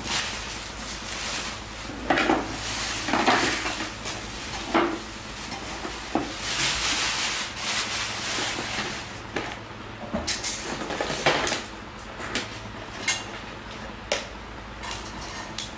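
Hard plastic containers and kitchenware being handled, making irregular knocks and clatters. A plastic bag rustles for a couple of seconds near the middle.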